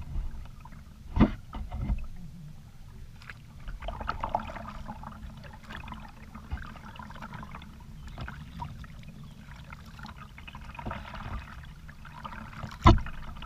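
Kayak paddle strokes, the blades dipping and splashing with water running off them, over a steady low rumble. Two sharp knocks, about a second in and near the end, the second the loudest, from the paddle striking the plastic kayak.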